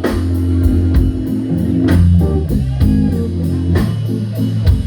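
Electric blues band playing live: an electric guitar fill over bass guitar and a steady drum beat, filling the break between sung lines of a slow blues.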